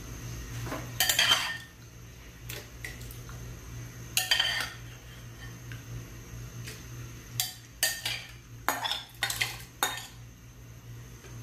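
Metal utensil scraping and clinking against a bowl and a metal pot as raw chicken gizzards are scraped in: two longer scrapes early, then a quick run of sharp clinks near the end.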